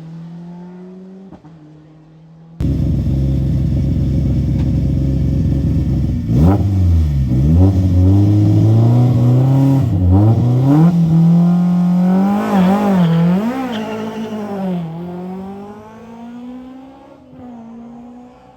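Historic rally car engines at a stage start. First the tail of one car pulling away and fading, then, about two and a half seconds in, a much louder car revving hard. Its pitch jumps up and down sharply several times before it pulls away and fades, the pitch slowly climbing.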